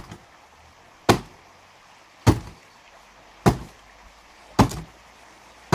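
Sledgehammer blows landing one after another at a steady pace, about one a second, five sharp hits that each die away quickly. They are not full-force swings.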